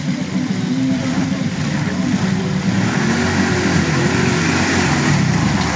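ATV engine running at low to moderate throttle, its pitch wavering as the quad is ridden over rough ground, growing a little louder as it comes closer.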